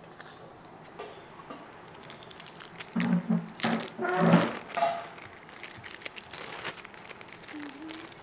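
Thin plastic film crinkling as individually wrapped processed cheese slices are peeled out of their wrappers, in small scattered crackles. A few short vocal sounds about three to five seconds in are the loudest thing heard.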